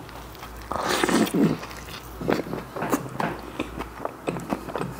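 A big bite into a burger soaked in butter chicken gravy, loudest about a second in, then close-miked chewing with many short smacks and clicks of a full mouth.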